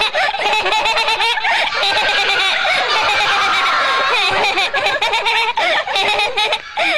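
Loud, wavering, honk-like cries from a cartoon voice with no clear words, running on with a short break near the end. This is the mysterious noise from the cave, later explained as a sick old wolf shouting nonsense words that echo in the cave.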